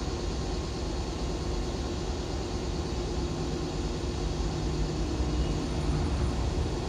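A Kotoden 1200 series electric train standing at a platform, its on-board equipment giving a steady low hum with a faint held tone, over a constant background rush.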